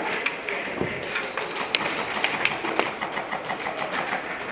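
Airsoft guns firing during a game: a scatter of sharp clicks and taps, several a second and irregular, with a louder crack about a second in.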